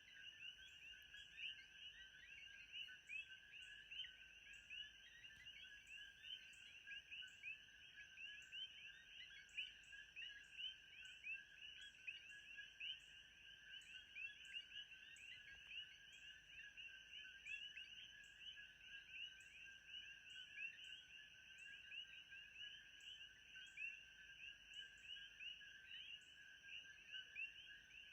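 Faint ambient chorus of frogs: many short chirping calls overlapping in a steady, unbroken mass, with a regular high tick about twice a second.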